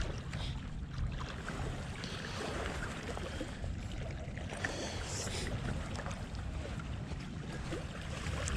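Wind buffeting the microphone: a steady low rumble, with scattered faint clicks.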